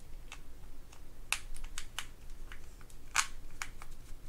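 Light, irregular metal clicks and ticks as a mini screwdriver works small screws out of a Shakespeare GX230 spinning reel and the parts are handled, with two sharper clicks about a second and a quarter and about three seconds in.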